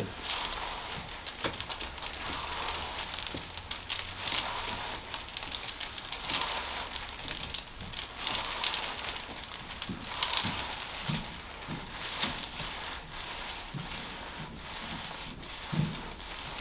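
Irregular crackling, rustling handling noise with a few soft knocks, as a patient is shifted and worked on a chiropractic treatment table during a gentle leg adjustment.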